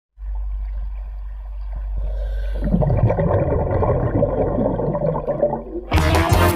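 Underwater bubbling and gurgling from a full-face snorkel mask with a hose air supply: a steady low rumble, then from about two and a half seconds a dense run of bubbles as exhaled air escapes from the top of the mask. Music starts suddenly near the end.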